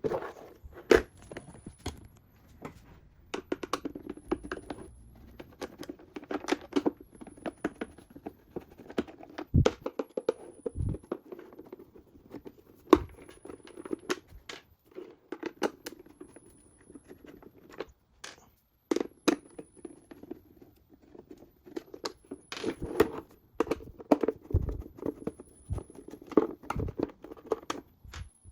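Hard plastic car interior trim being handled and worked loose: a run of sharp clicks and knocks, the sharpest about a second in and near the middle, with scraping and rubbing of plastic between them.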